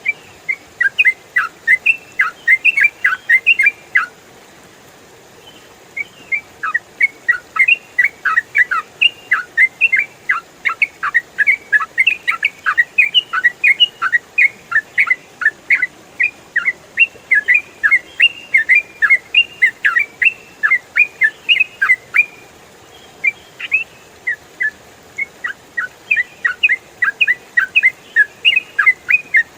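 Yellow-vented bulbul singing a rapid, continuous run of short chirping notes, broken by two brief pauses.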